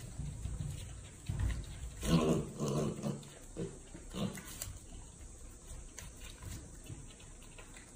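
Piglet grunting in a few short bursts, about two, three and four seconds in.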